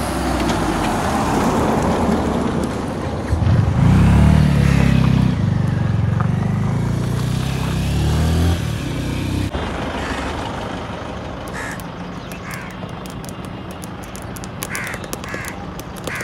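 A car's engine goes by on the road, loud and steady for several seconds. After an abrupt cut, wind noise with a few short crow caws.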